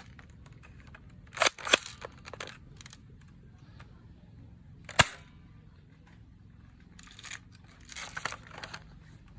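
Plastic clicks and snaps from a toy shotgun being worked by hand: a quick cluster of clicks, one sharp snap about halfway through, then more clicks near the end.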